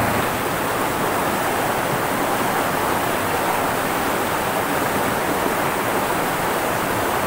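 Shallow river flowing fast over rocks, a steady rushing of water.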